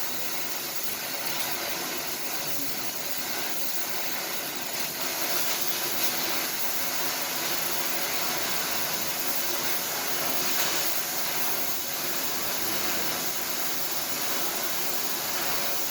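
Electric welding arc burning steadily: a continuous hiss with fine crackle and no breaks.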